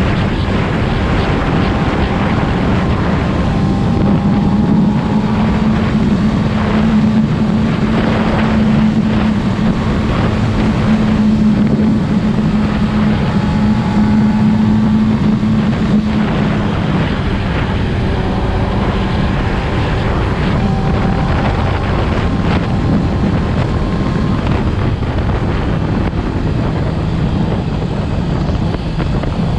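Yamaha R6 2020 inline-four engine running steadily at a held speed, louder and higher for a stretch of about 4 to 17 seconds, then easing slightly. This is the engine whose owner reports an abnormal noise above 5,000 rpm.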